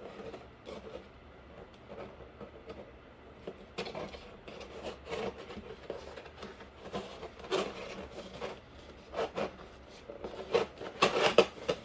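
Cardboard being cut and handled: a run of short scrapes and rustles, louder and closer together toward the end.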